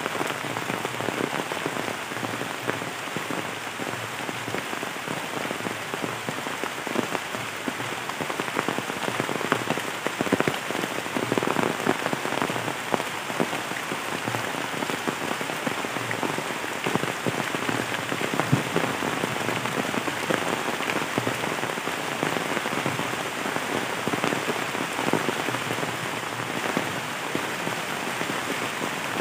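Heavy rain pouring down on trees and undergrowth: a steady hiss of rainfall with many close drops ticking on leaves.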